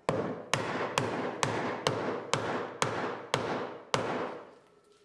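Wooden mallet striking the top of an oak leg about twice a second, some nine blows, each with a short ringing decay, driving an angled sliding dovetail joint that is too tight; the blows stop about four seconds in.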